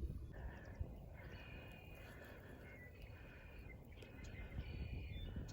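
Outdoor animal calls: a chorus of short, high calls repeating about every half second to a second, over a low wind rumble.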